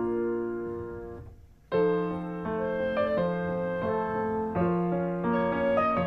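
Background piano music: a held chord fades almost to nothing, then a new phrase of notes begins about a second and a half in and carries on.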